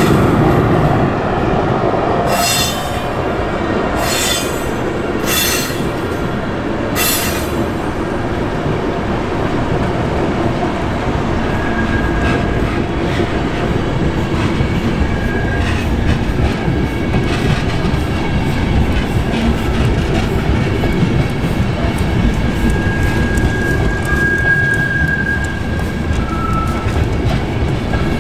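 Intercity passenger train running past on the tracks: a steady rumble of wheels on rail, with several sharp clacks in the first seven seconds or so and short high-pitched wheel squeals later on.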